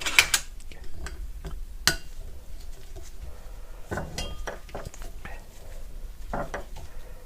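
Metal tools and parts clinking and tapping against the Atlas lathe countershaft while a set screw is being worked loose: scattered sharp clicks, the strongest just after the start and at about two seconds, with a few duller knocks later.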